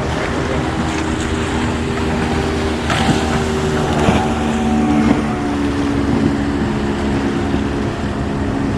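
Strong wind blowing across the microphone over surf, with the steady hum of a motor running under it, loudest from about three to six seconds in.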